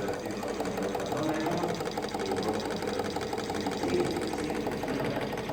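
A small machine running with a fast, even mechanical rattle, roughly ten beats a second.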